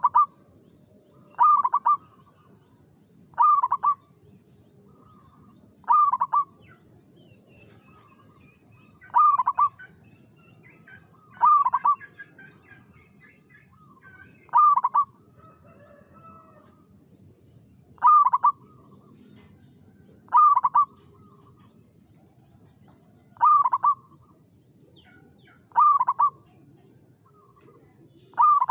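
Zebra dove (perkutut) in a cage singing: short, clipped cooing phrases repeated about every two to three seconds, around a dozen times.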